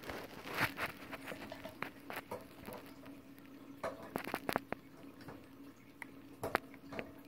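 Irregular light taps, clicks and scrabbling of a baby wood mouse moving on clear plastic inside a hamster enclosure, with a few sharper knocks of the plastic, over a faint steady hum.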